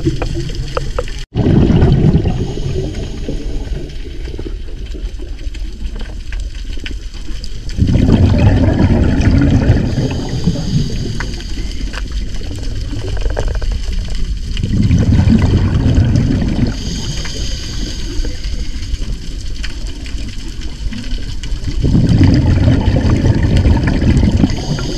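Scuba diver breathing through a regulator underwater: a loud rush of exhaled bubbles about every six or seven seconds, with the softer hiss of inhaling between.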